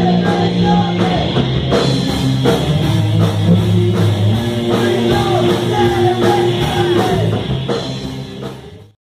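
A rock band plays with distorted electric guitar, a drum kit and a singer. The song fades out to silence just before the end.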